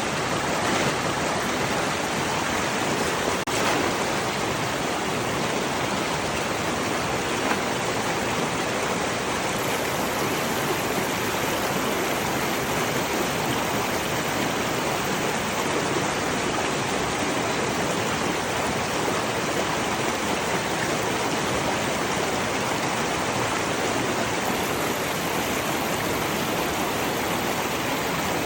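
Steady rushing of flowing water, as of a stream or river running fast.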